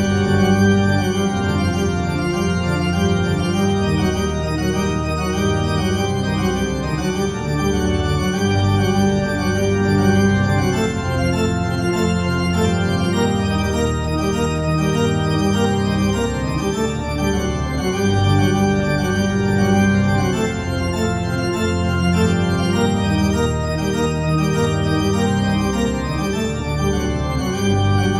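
Organ music playing slow, held chords with a low bass line.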